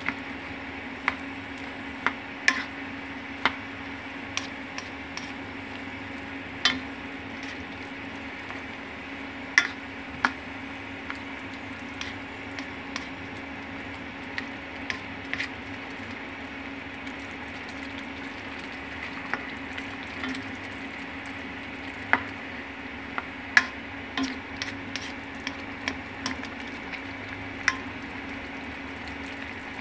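A cooking utensil clinks and scrapes irregularly against a pan while noodles and vegetables are stirred, about one clink a second, over a steady hum and cooking noise.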